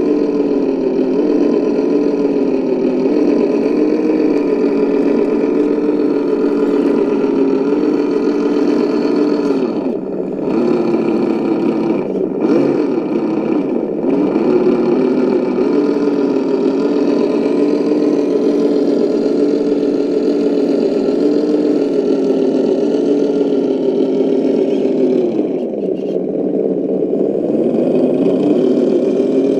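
RC crawler's electric motor and geared drivetrain running under load as it crawls along towing a trailer: a steady drone. It drops in pitch and level twice as the truck slows, then picks up again.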